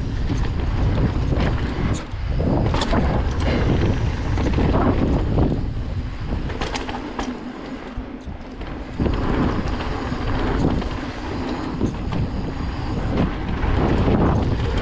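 Wind buffeting the microphone of a mountain bike's camera on a fast dirt-trail descent, over tyre rumble, with scattered sharp clicks and rattles from the bike.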